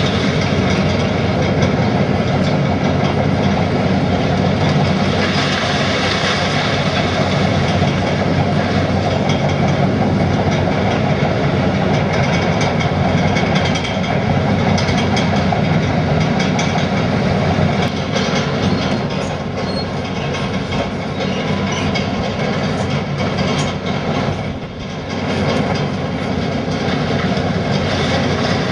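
Heavy demolition machinery running steadily, with continual clattering and knocking of material being broken, easing briefly near the end.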